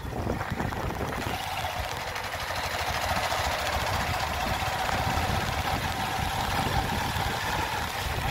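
A vehicle's engine running steadily as it drives along, a low rumble with a constant mid-pitched hum on top.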